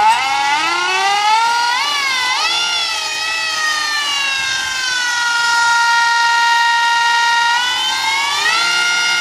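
Golden Motor 5 kW 48 V brushless electric outboard motor spinning the lower unit and propeller out of the water, with a high, siren-like whine. The pitch climbs quickly at the start, wavers, holds steady, then climbs again near the end. The motor is held to its speed limit by the controller, a very fast wound motor.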